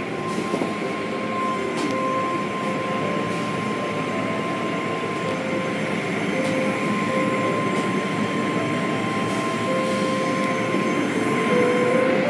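Automated tunnel car wash running: cloth brushes and hanging cloth strips spinning and slapping over a car amid water spray, a steady mechanical wash of noise with a constant thin whine.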